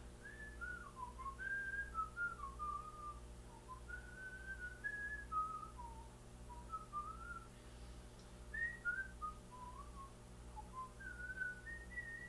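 A person whistling an idle, wandering tune in short phrases, over the steady hum of a running microwave oven.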